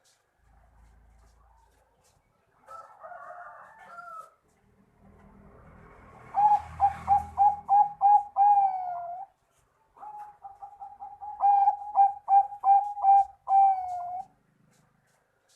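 Bangkok-bred zebra dove (perkutut) singing its cooing song twice: each phrase is a quick run of short clipped coos ending in a longer drawn-out note that drops at the end, with a brief warbled call a few seconds before the first phrase.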